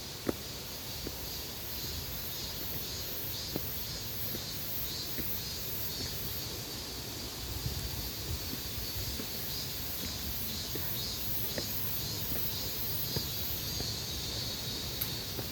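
Insects chirping in the woods, a steady high pulsing about three times a second, with scattered faint clicks and a low rumble of wind or handling underneath.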